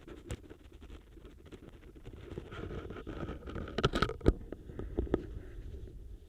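Autumn leaves crackling and scraping against a contact microphone: a steady crackle full of small clicks, with a cluster of sharper, louder cracks about four seconds in and another near five seconds.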